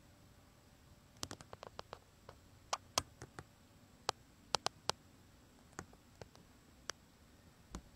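Sparse, irregular light clicks and ticks over a faint hiss. A quick cluster comes about a second in, then single clicks are scattered through the rest.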